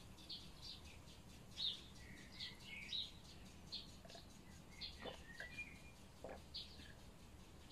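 Small birds chirping faintly: a scattered run of short, high chirps with a few brief whistled notes.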